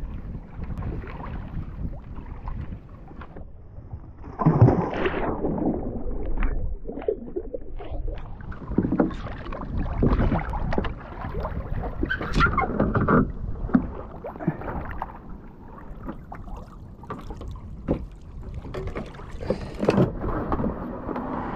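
Choppy sea water slapping and splashing against a fishing kayak's plastic hull, with wind on the microphone and scattered knocks on the deck as a caught fish and gear are handled. A louder rush of splashing comes about four and a half seconds in.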